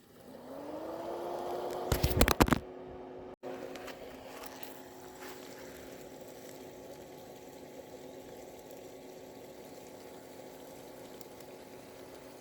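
Electric motor of a model GP30 diesel locomotive running on analog track power with no sound system: a whine that rises in pitch as it picks up speed in the first second, then holds steady. A burst of loud clicking about two seconds in.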